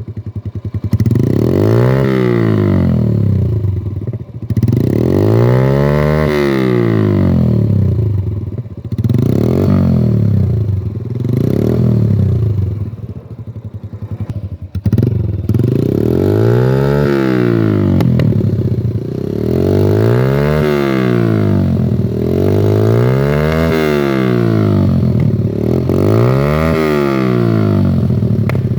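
Yamaha YBR 125's single-cylinder four-stroke engine revved again and again through an Akrapovic exhaust with the dB killer removed, its pitch rising and falling back toward idle with each blip of the throttle, about every two to three seconds.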